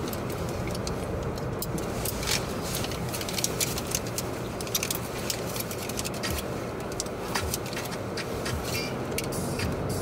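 Automatic car wash heard from inside the car: a steady rumble with many irregular clicks and taps on the body.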